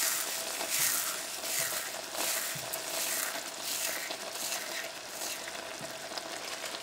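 Chopped tomatoes, red bell pepper and onions in tomato paste sizzling in an electric rice cooker pot: a steady, soft crackling hiss.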